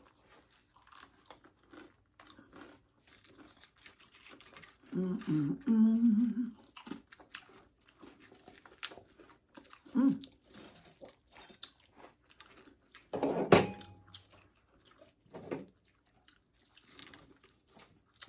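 Loaded nachos made on Doritos being eaten: crunching chips and wet chewing with scattered small clicks, with a couple of brief vocal sounds about five and ten seconds in.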